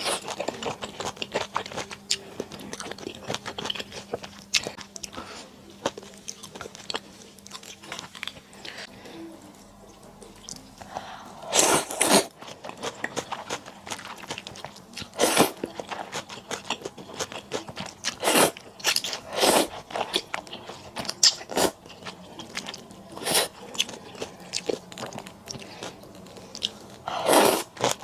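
Close-miked eating sounds from a person biting and chewing, with small wet clicks throughout and several louder crunching or slurping bursts in the second half.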